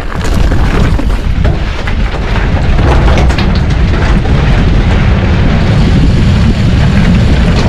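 Wind buffeting a GoPro's microphone on a mountain bike ridden at speed: a loud, steady low rumble that sets in at the start, with faint clicks and rattles from the bike over the rough trail.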